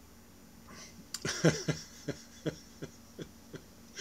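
A man laughing: a burst of short laughs starting about a second in, coming slower and fainter as it trails off.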